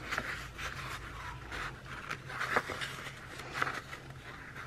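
Paper and sticker sheets being handled on a desk: short, irregular rustles and light taps over a low steady hum.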